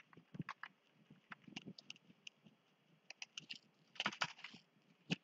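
Faint computer keyboard typing: short runs of key clicks, with a denser flurry about four seconds in.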